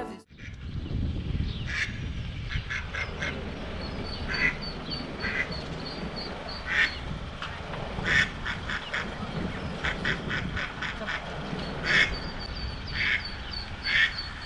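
A mallard hen quacks in short, scattered calls while her ducklings peep in quick high runs of about four notes a second, twice. A low steady rumble of street noise runs underneath.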